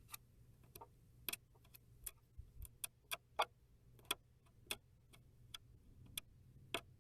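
Irregular sharp clicks and ticks, some louder than others: fingernails picking and flicking loose, flaking paint off a wooden fin.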